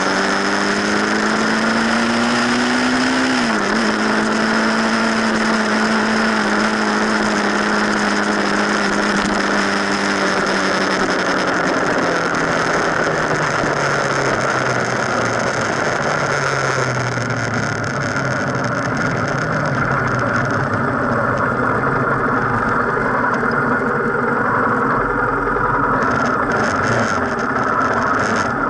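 Knobby mountain-bike tyre rolling on asphalt, heard close from the front fork: a loud, steady road hum with a humming tone whose pitch sinks as the bike slows, and a few knocks near the end.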